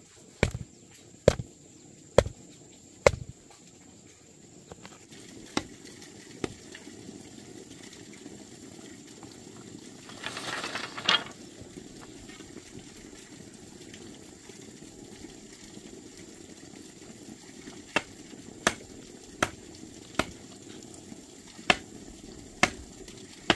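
Sharp strikes of a hand tool, about one a second in a run at the start and another run near the end, with a brief rustling burst in the middle, over a steady low hiss.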